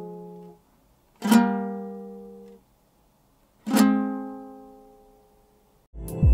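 Kazakh two-string dombra: single strummed chords, down-strokes, each left to ring and die away, two new ones struck about two and a half seconds apart. Near the end a short outro jingle with a deep bass begins.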